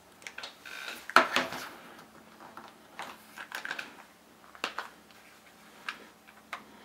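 Small plastic clamshell case of a miniature Scrabble game being handled and pried open with the fingers: scattered sharp plastic clicks and snaps, the loudest a little over a second in, with faint handling noise between them.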